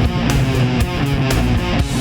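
Heavy nu-metal music without vocals: distorted electric guitar riffing over steady drum hits.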